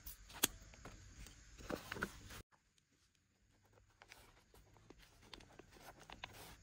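Scissors snipping through a plastic plant nursery pot, with two sharp snips in the first half second and soil crumbling and scraping under the hands. The sound drops off abruptly about two and a half seconds in, leaving faint scratchy clicks as scissors work at a black plastic grow bag set in loose soil.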